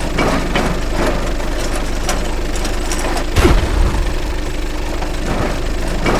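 Vehicle engine running steadily with a knocking note. A heavy thud, falling in pitch, comes a little past halfway.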